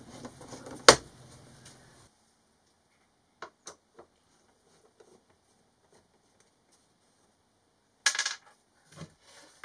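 Small metal screws clicking and clinking as they are handled: a few separate short clicks, the loudest about a second in, and a brief rattle near the end.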